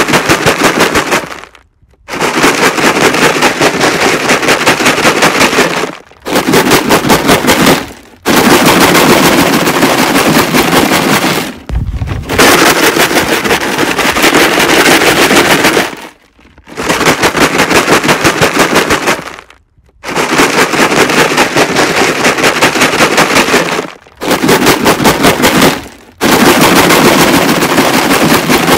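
Rocks rattling hard inside a plastic jug being shaken, in loud bursts of a few seconds each with short pauses between, a rapid clatter of many strikes.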